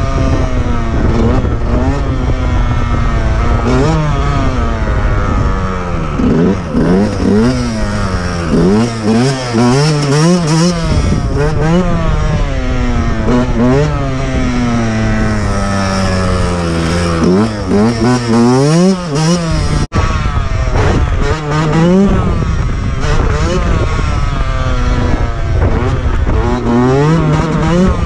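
Motorcycle engine revving up and down over and over, its pitch climbing and falling every second or two as the throttle is worked, over a steady low rumble. The sound cuts out for an instant about two-thirds of the way through.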